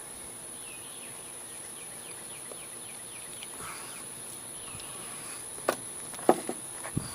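Steady high-pitched insect drone outdoors, with a run of quick descending bird chirps in the first few seconds. A few sharp clicks and knocks near the end, one much louder than the rest.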